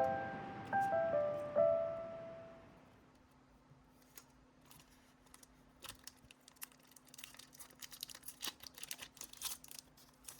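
Background music with piano-like notes fades out in the first couple of seconds. Then, from about four seconds in, the crinkling and tearing of a trading-card booster pack wrapper being opened, a run of quick crackles that gets busier toward the end.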